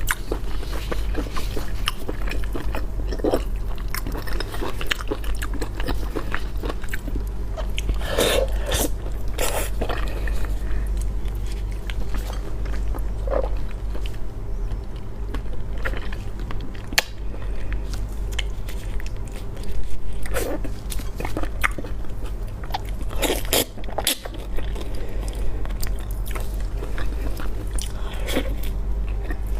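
Close-miked chewing and biting as a person eats spicy monkfish, with irregular short clicks and smacks over a steady low hum.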